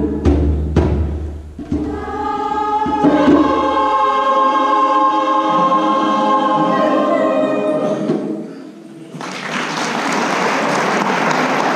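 A few low drum strikes, then the choir holds the song's closing chord for several seconds before it fades away. About nine seconds in, the audience breaks into applause that carries on.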